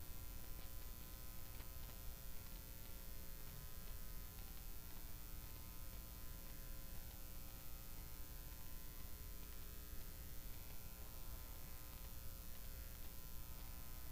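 Steady electrical hum and buzz: a stack of fixed tones over a low rumble, with no other sound.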